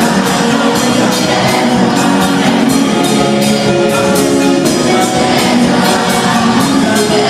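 A live gospel band plays loudly with singing over a steady drum beat.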